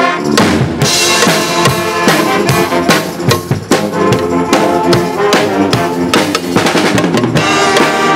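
Pep band playing: brass (trumpets, trombones, sousaphone) holding chords over a drum kit and bass drum keeping a steady beat.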